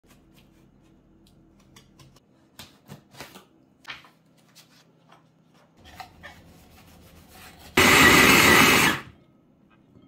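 A knife scoring through the tape of a cardboard box, with light scrapes and handling clicks. About eight seconds in, a food processor runs in one loud burst of just over a second that cuts off suddenly.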